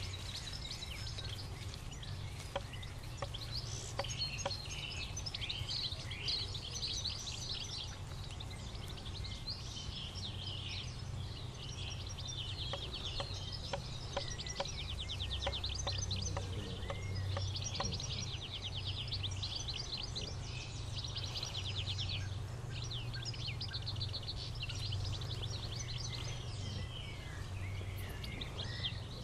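Several garden birds singing and calling, with fast repeated trills around the middle, over a steady low rumble of wind on the microphone.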